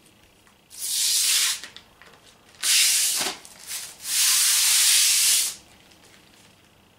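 Plastic wrapping rustling and tearing as it is cut and pulled off a makeup palette, in three bursts of a second or so each. The last and longest comes about four seconds in.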